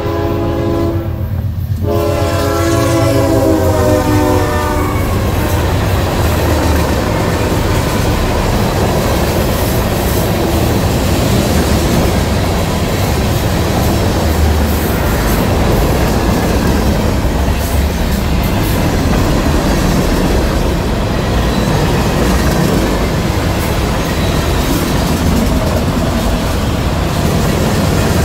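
Norfolk Southern freight train passing close by. The locomotive's air horn is sounding, breaks off about a second in and blows again until about five seconds in. After that comes the loud, steady rumble and clatter of the freight cars rolling past.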